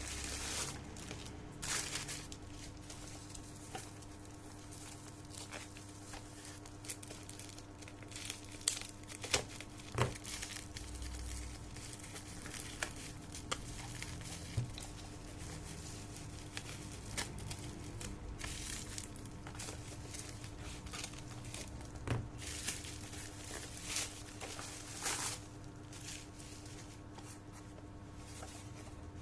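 Packaging being handled and opened: crinkling and tearing, with scattered short clicks and taps, over a faint steady hum.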